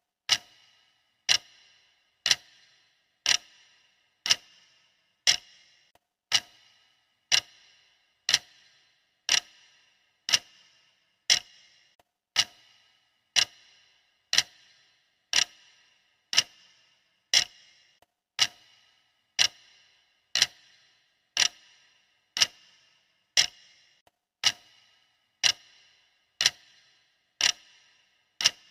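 Clock ticking steadily, one sharp tick each second, each tick with a brief metallic ring.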